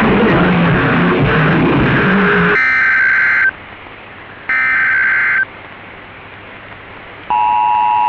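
Music cuts off and is followed by two short bursts of EAS digital data tones, each just under a second long and about a second apart. Near the end a steady two-tone EAS attention signal starts. It is heard off an AM radio broadcast.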